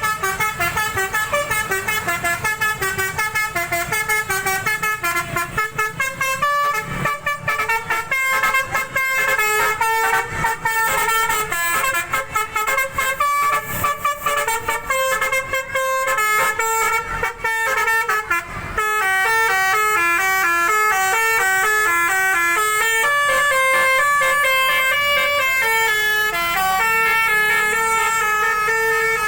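Telolet bus horn: a bank of musical air horns playing a tune in quick stepping notes, several pitches sounding together. Up to about two-thirds of the way through the notes come in short choppy blasts, then they change to longer, smoother held notes.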